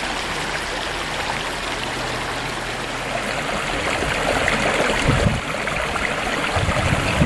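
Steady rush and trickle of a small stream flowing, with a couple of dull low thumps in the second half.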